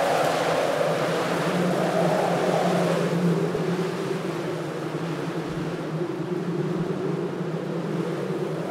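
Strong wind blowing steadily, with a hollow tone in it that sinks about three seconds in and rises again near the end.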